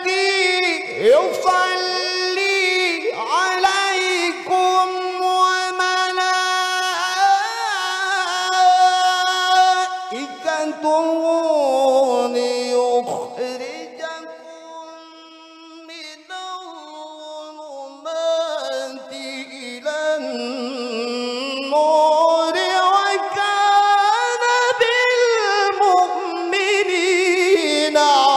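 Male Quran reciter (qari) singing a long, ornamented tilawah melody on a drawn-out vowel, amplified through a handheld microphone. The voice holds and bends high notes, falls softer about halfway through, then climbs and swells again near the end.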